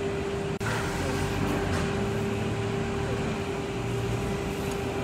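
Steady hum of running electric machinery, with one constant tone over a noisy drone. It cuts out for an instant about half a second in.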